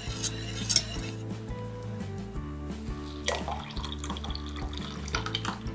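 Background music, with a wire whisk clinking against a stainless steel saucepan in the first second, then hot strawberry gelatin poured from the saucepan into a measuring jug of water from about three seconds in.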